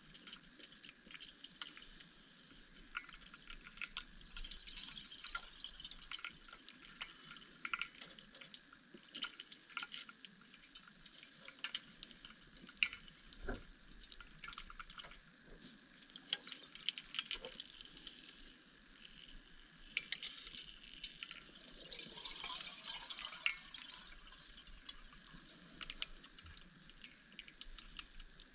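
Underwater sound picked up by a camera in its housing during a rebreather wreck dive: dense, irregular crackling clicks over a faint steady hum. There are no exhaust bubbles.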